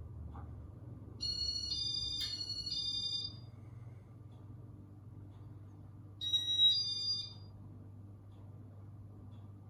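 Two short runs of high electronic chirping tones, stepping back and forth between two pitches, over a low steady hum.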